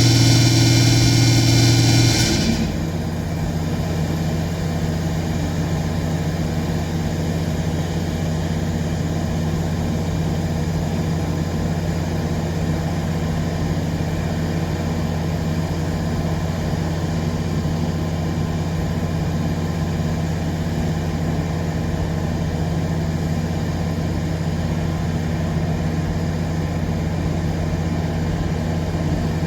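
A heavy engine idling steadily with an even low drone. About two seconds in, a loud sustained sound made of several steady tones cuts off suddenly.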